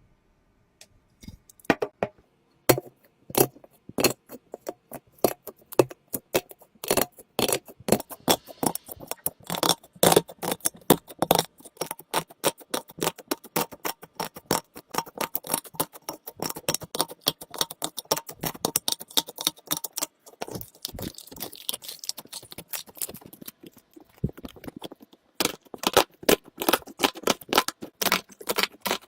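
Slime being squeezed and worked by hand, giving a dense, irregular run of sharp clicking and crackling pops that starts about a second in.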